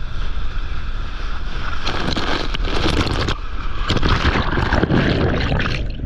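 Breaking surf whitewater rushing and splashing right at the microphone, with wind buffeting it. The rush swells twice, about two and four seconds in, and ends in a flurry of splashes.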